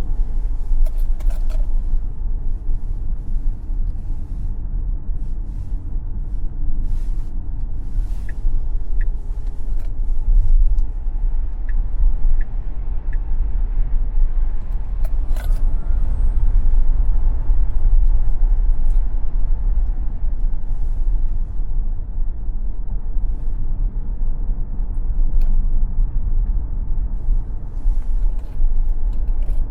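Tesla Model X electric car driven hard on a racetrack: a steady, loud low rumble of tyres and road noise with no engine note, and scattered light clicks and knocks.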